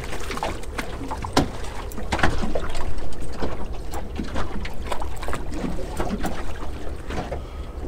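Irregular splashes and knocks of water at a small boat's side as a hooked kingfish is brought to the surface and into a landing net, over a steady deep rumble.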